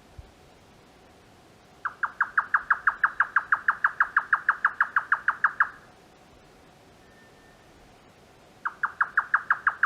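Grey nightjar giving its typical rapid churring 'kyo-kyo-kyo' call (the 'cucumber-chopping' call), a fast even run of about eight identical notes a second lasting about four seconds, then starting again near the end.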